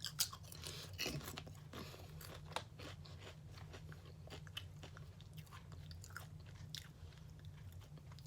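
Close-mic chewing and crunching of Lay's potato chips: a steady run of crisp crunches as a mouthful is chewed.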